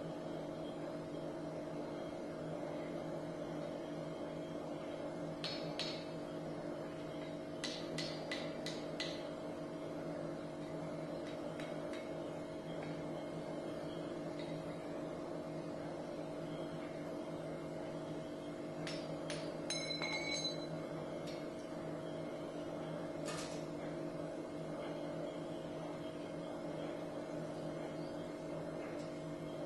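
Light hammer blows on the hot forged steel axe head at the anvil, straightening it, coming in a few short clusters, some with a brief metallic ring, over a steady low hum.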